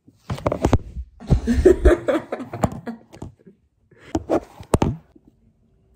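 Two young women laughing together in fits of giggles, a long run over the first three seconds and a shorter burst about four seconds in.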